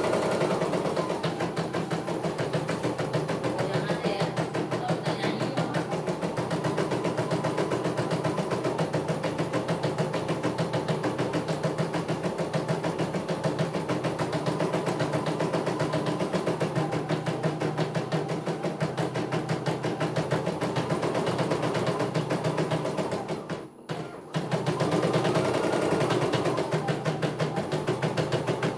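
CNY E900 computerised embroidery machine stitching a design, its needle working in a rapid, steady rhythm over the hum of its motor. It stops briefly once, about five seconds before the end, then carries on stitching.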